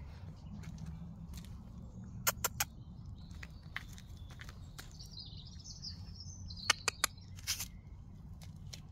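A bird singing in the background, with a warbling chirp from about three and a half to six and a half seconds in, over a steady low rumble. Two quick sets of three sharp clicks, about two seconds in and about seven seconds in, are the loudest sounds.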